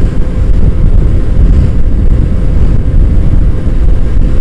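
Heavy wind rumble on a motorcycle rider's camera microphone at road speed, with the motorcycle's engine running steadily underneath.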